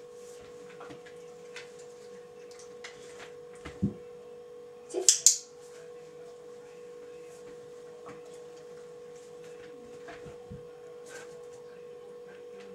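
Steady electrical hum with a fainter higher tone, broken by a dull thump about four seconds in and a sharp double click about five seconds in.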